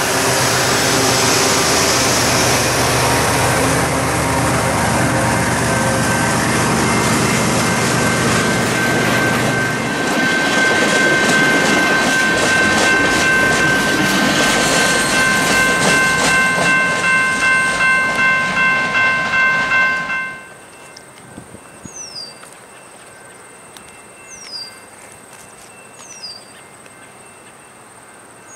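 Freight train passing close by: a diesel locomotive's engine running, then freight cars rolling past with steady high tones from the wheels and a clickety-clack of about two beats a second. The train noise drops off suddenly about two-thirds of the way through, leaving a bird giving four short falling chirps.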